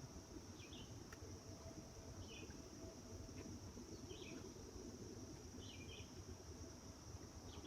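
Steady high-pitched insect chorus, with a bird giving a short chirp four times at even spacing, under a low rumble of outdoor background noise.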